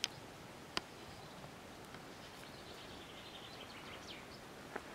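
Faint outdoor ambience with distant birds chirping, broken by a few sharp clicks, the loudest at the very start and about a second in.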